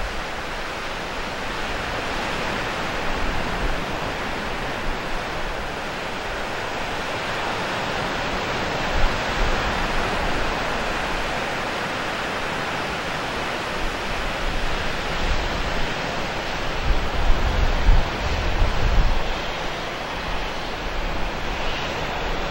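Steady rush of ocean surf, with wind buffeting the microphone in low gusts, mostly in the second half.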